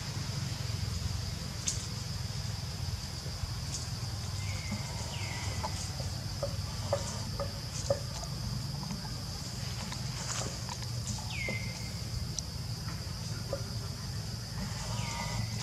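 Forest ambience: a steady high-pitched insect drone, with four short calls that fall in pitch and then hold briefly, scattered small clicks, and a low rumble underneath.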